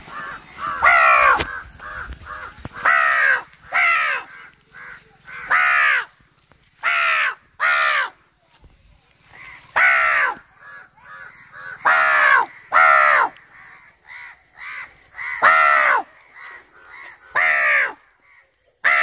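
A man imitating crow caws to call crows in: a string of loud, harsh caws, each falling slightly in pitch, one to two seconds apart. Fainter caws come in between, from crows answering.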